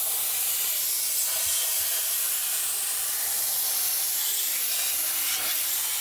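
McCulloch steam cleaner hissing steadily as its handheld nozzle blows steam onto ice built up on a freezer's evaporator coils to melt it.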